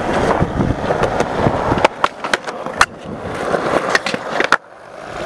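Skateboard wheels rolling on rough concrete, with a cluster of sharp wooden board clacks about two to three seconds in. The rolling noise drops out briefly near the end.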